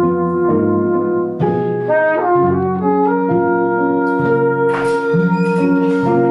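Live jazz combo playing a tune in three-four time: a flugelhorn carries the melody in long held notes over archtop electric guitar and bowed cello.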